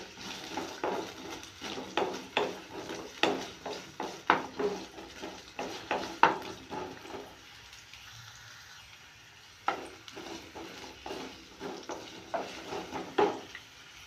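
Carrot sticks shallow-frying in oil in a nonstick pan with a low sizzle, while a wooden spatula scrapes and turns them in a run of short strokes. The stirring stops for about two seconds halfway through, then starts again with a sharp knock of the spatula and more strokes.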